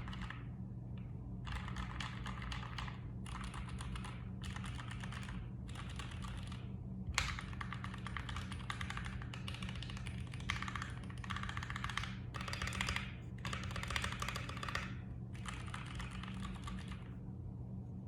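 Typing on a mechanical keyboard with lubed Gateron Ink Black V2 linear switches: fast runs of key strokes in short bursts with brief pauses, stopping near the end.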